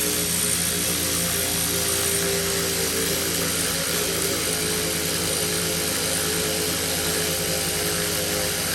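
A power tool's electric motor running steadily and evenly, with a slight wavering in its pitch.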